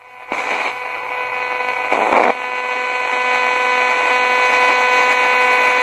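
Hacked Radio Shack 20-125 spirit box radio sweeping through stations: hissing static with a steady buzz, cutting in about a third of a second in, with a louder burst of static around two seconds in.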